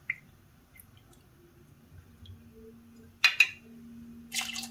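Stainless steel jigger clinking against a glass mug as a shot of tequila is tipped from it onto ice, with a couple of sharp clinks a little after three seconds and a short splash near the end.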